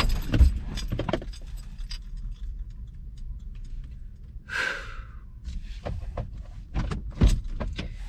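Car keys jangling, with scattered clicks and knocks as they are handled in the car's cabin. One sharp click comes about seven seconds in, and a short rushing sound about halfway. A low steady hum runs beneath.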